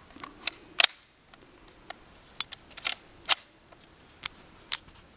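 Sharp mechanical clicks and clacks from an ISSC MK22 .22 LR rifle being loaded and readied to fire: the magazine being seated and the action worked. About six separate clicks at uneven spacing, the loudest near the start and about three seconds in.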